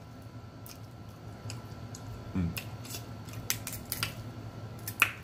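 Scattered sharp clicks and crackles of a crab leg shell being cracked and picked apart by hand, close to the microphone, with a louder crack near the end.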